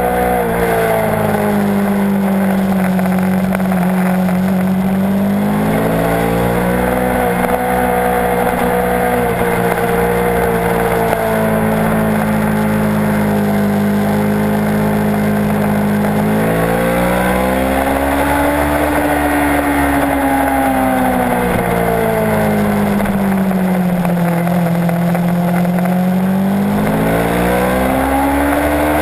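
Kawasaki Ninja 650's parallel-twin engine at speed on a race track, its revs climbing and falling several times as the rider accelerates out of corners and backs off into them, with a sharp drop near the start and again at the very end. Wind rushes over the microphone underneath.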